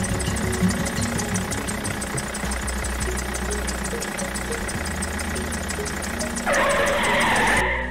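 Tractor-style engine idling with a rapid, even ticking knock. About six and a half seconds in, a loud hissing rush takes over for about a second, then the sound cuts off suddenly.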